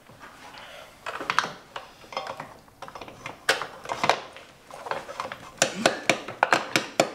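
Hand tools clicking, tapping and scraping on the metal parts of a motocross bike as a part is worked into place, with a quick run of taps near the end.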